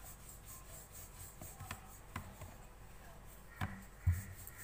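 Wooden rolling pin rolling out paratha dough on a round wooden board, with a soft rubbing sound and a few light wooden knocks, the loudest a low thud about four seconds in.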